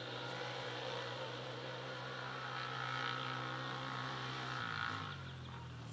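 Can-Am Outlander Max 1000 ATV's V-twin engine with a Muzzy dual exhaust running at a steady pitch under way. The engine note drops near the end as it backs off.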